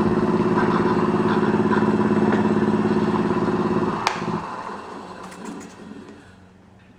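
Lathe motor running steadily with a pulsing hum, then a sharp click about four seconds in as it is switched off, after which the hum fades away as the lathe spins down.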